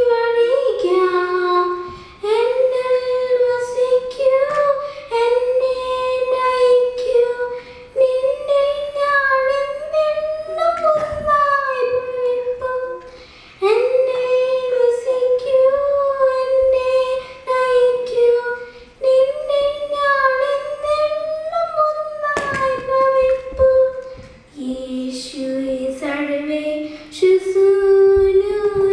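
A young girl singing solo and unaccompanied, holding long notes and gliding between pitches, in phrases separated by short pauses for breath.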